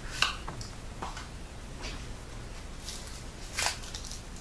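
Paper rustling as a small instruction booklet and cards are handled, with a few short scattered rustles and light taps; the clearest come about a quarter second in and again near the end.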